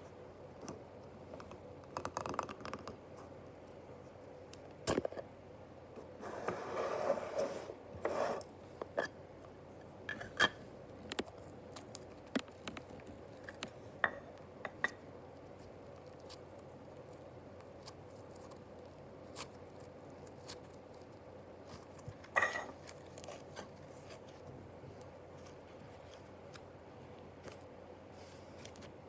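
Handling noises from unboxing slime: scattered small clicks and taps of plastic containers and packaging, with a stretch of rustling or scraping about six to eight seconds in and again briefly near twenty-two seconds.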